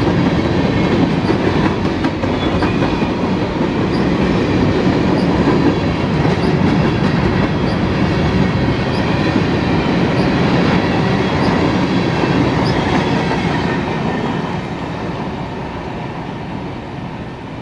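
CSX freight train of covered hopper cars rolling past close by: a steady rumble and clatter of steel wheels on rail, with a faint click about every two-thirds of a second. It fades over the last few seconds.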